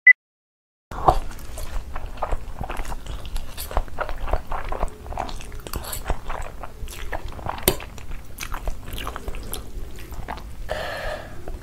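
A single short high beep, the last tone of a film countdown leader, then close-miked eating of spicy black bean noodles (jjajangmyeon): slurping and chewing with many small wet clicks and smacks. A longer slurp comes near the end.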